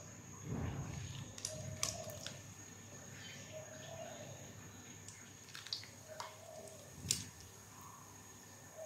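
Rice-flour-coated crinkle-cut potato fries going into hot oil and starting to fry: a soft splash about half a second in as the last fries drop in, then faint sizzling with scattered pops and crackles.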